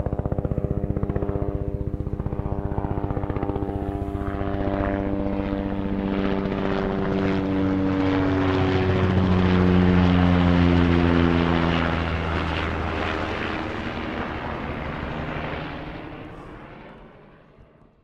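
Low-flying aircraft passing by with a fast, rhythmic beating over an engine drone. It grows louder to a peak about ten seconds in, where its pitch drops, and then fades away.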